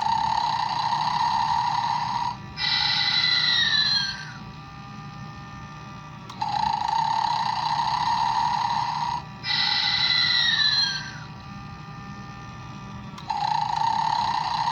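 Gemmy Snoring Santa animatronic toy playing its recorded snore in a repeating cycle: a steady snoring inhale of about two and a half seconds, then a whistling exhale that slides down in pitch, then a short pause. The cycle repeats about every six and a half seconds, giving three snores and two whistles.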